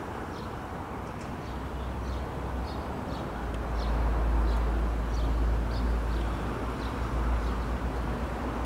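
Outdoor city ambience: a steady low rumble of distant traffic that swells about four seconds in, with short high bird chirps about twice a second.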